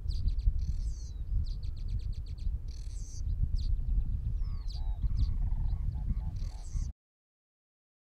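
Wind rumbling on the microphone, with small birds chirping and trilling high over it. About halfway, a bird gives a run of short croaking notes. The sound cuts off suddenly near the end.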